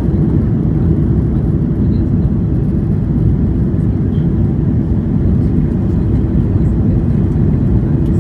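Steady in-cabin drone of an Airbus A330-300 in flight after takeoff: the Rolls-Royce Trent 700 engines and airflow make a deep, even rumble with no change in pitch.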